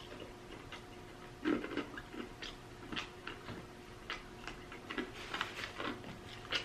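A person chewing food close to the microphone with wet open-mouth smacking: irregular short clicks and smacks, the loudest about a second and a half in.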